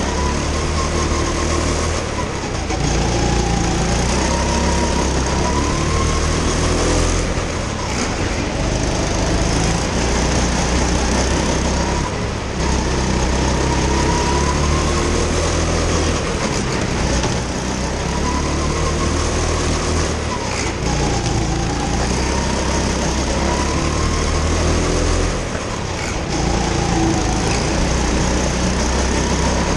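Go-kart engine at racing speed, heard onboard. Its pitch rises on each straight and drops into each corner, over and over through a lap, with short dips in loudness under braking.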